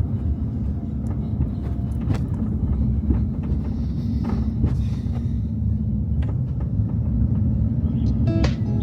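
Steady, loud low rumble with scattered light clicks and knocks; plucked guitar music comes in near the end.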